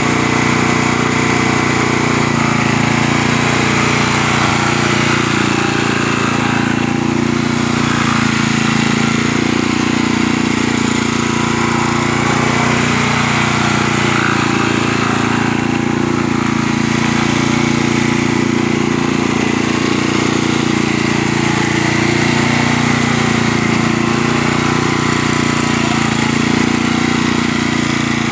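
Scag 36-inch walk-behind mower's engine running steadily as the machine is driven around.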